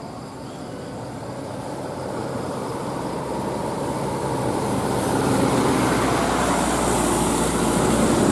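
A large road vehicle approaching, its engine and tyre noise growing steadily louder.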